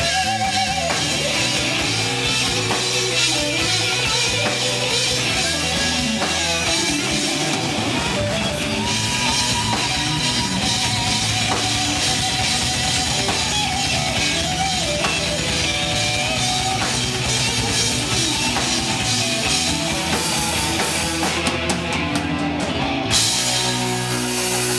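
Live rock band playing: electric guitars over a full drum kit. Near the end the cymbals suddenly ring out brighter.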